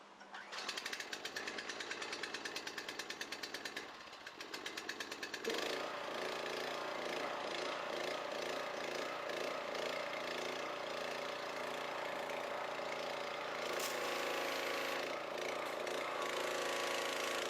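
Small gas engine of a pressure washer starting with the choke on: it fires unevenly and sputters, falters near four seconds, then catches about five and a half seconds in and runs steadily. It is running on four-year-old gasoline through a carburetor the owner says needs to be gone through.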